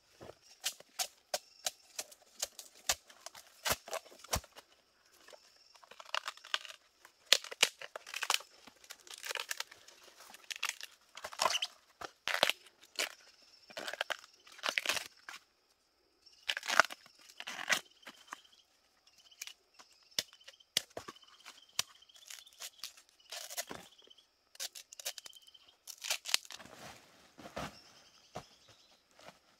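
Fresh bamboo shoots being peeled with a knife: sharp cracks, then repeated ripping as the tough outer husks are torn away. Near the end, rustling and crinkling of a woven plastic sack.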